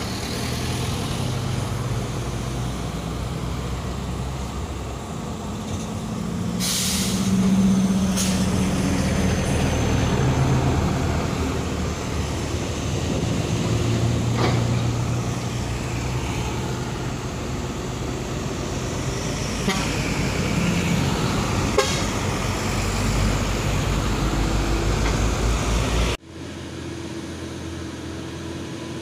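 Heavy diesel trucks running and passing close by on a hill road, with a hiss about seven seconds in; the sound drops suddenly to a quieter, more distant engine near the end.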